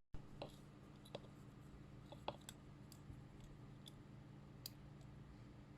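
Near silence: faint room tone with a low steady hum and a few scattered light clicks.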